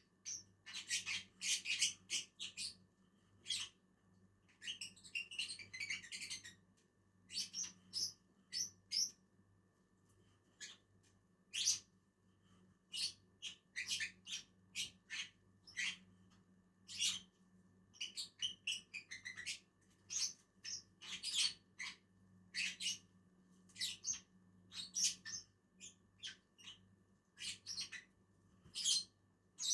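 Lovebirds (Agapornis) giving many short, sharp, high chirps in irregular clusters, with two stretches of quicker chattering, about five seconds in and again near the middle, over a faint steady low hum.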